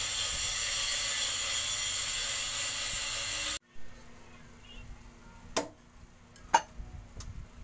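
A steady hiss that cuts off suddenly, then a kitchen knife chopping through a raw chicken onto a plastic cutting board: two sharp knocks about a second apart and a fainter one after.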